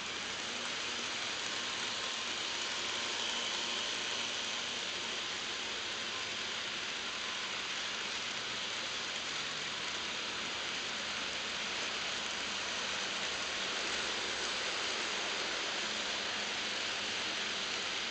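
HO scale model freight trains running on sectional track: a steady rushing hiss of many small wheels rolling on the rails.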